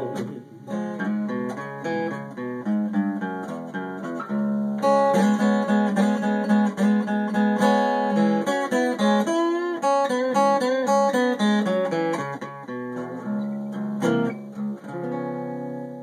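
Acoustic guitar played solo: a run of picked notes and chords, ending on a chord left to ring out about a second before the end.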